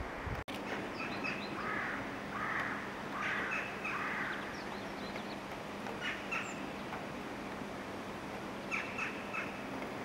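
Eurasian bullfinch singing: groups of short creaky, scratchy notes mixed with short piping whistles, coming in bouts a few seconds apart. A steady low hum runs underneath.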